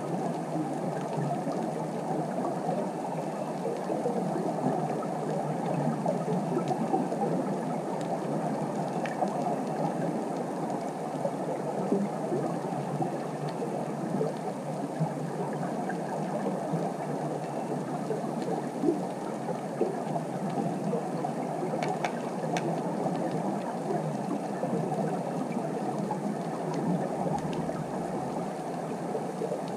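Steady, muffled underwater ambience on the sea floor: an even low rushing hiss, with a few faint scattered clicks.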